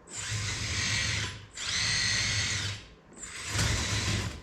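Electric motors of an RC4WD Volvo EC480DL model excavator whirring in three short bursts of about a second each, with a steady high whine, as its functions are worked from the radio; a fourth burst starts right at the end.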